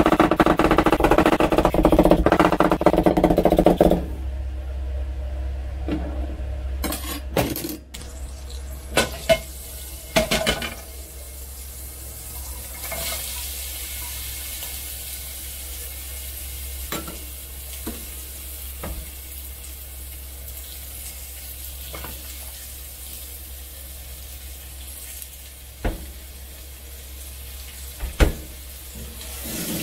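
Background music for the first few seconds. Then onion and pumpkin slices fry in butter in a frying pan, giving a quiet, steady sizzle with scattered knocks and clatters of the pieces and utensil against the pan.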